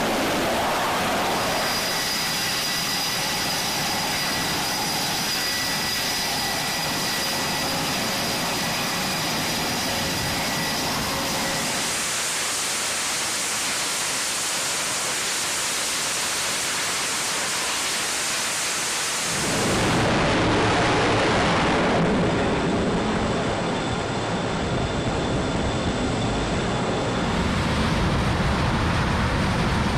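Steady loud jet engine noise from F/A-18 jets on a carrier flight deck, with a high thin whine through the first third. The noise changes abruptly about a third of the way in, again about two-thirds in, and near the end.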